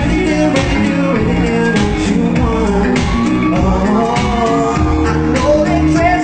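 Live amplified pop music in a large hall: a singer singing into a microphone over an instrumental backing with a steady beat.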